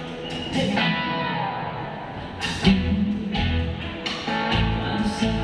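Band music with guitar to the fore, in an instrumental gap between sung lines. A sharp hit lands about halfway in, and the low end fills out after it.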